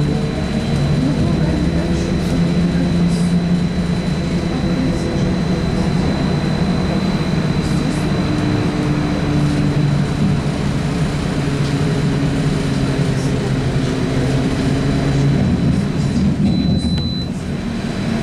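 Trolza-5275.03 Optima trolleybus running, heard from inside the passenger cabin: a steady hum of the electric drive and road noise, with a faint constant high whine. Near the end the noise dips briefly.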